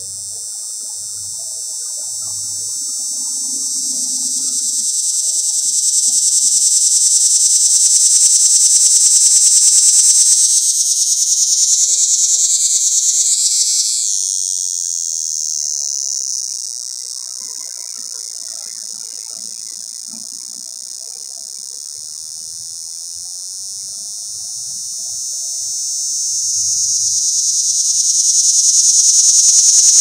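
Male cicada giving its mating call close up: a continuous high-pitched buzz that swells to a peak about a third of the way through, wavers in pitch, eases off, then builds again near the end.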